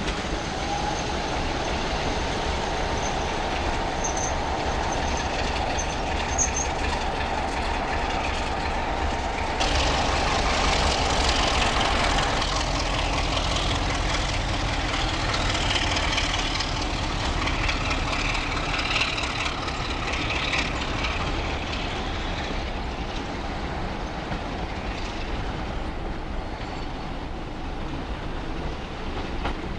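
British Rail Class 33 diesel locomotive running along the tracks with its engine working. It gets suddenly louder about ten seconds in, and high wheel squeals come and go midway through before the sound eases off.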